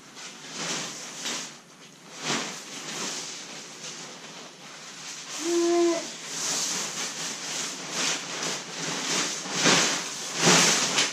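Marmot Tungsten 2-person tent fabric rustling and swishing in irregular bursts as it is handled, spread out and lifted, with the loudest swishes near the end. A brief pitched tone sounds about halfway through.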